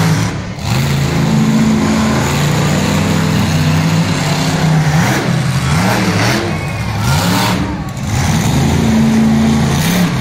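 Monster truck engine revving hard, its pitch swinging up and down in several repeated swells, with brief drops in loudness about half a second in and near eight seconds.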